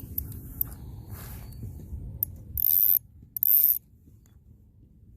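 Spinning reel being worked, a Shimano Stradic FL 1000, its mechanism clicking and whirring. About halfway through come two short, loud, hissy bursts half a second apart.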